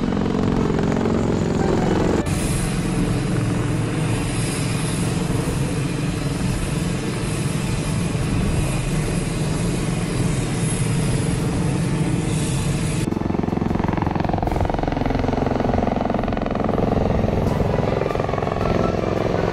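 CV-22 Osprey tilt-rotor aircraft flying overhead: the steady, heavy rotor noise of their proprotors and turboshaft engines. Near the end, tones fall in pitch as a single Osprey passes low.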